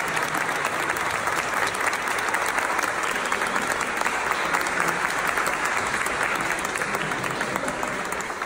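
A crowd applauding steadily: dense, even hand-clapping that begins to die down near the end.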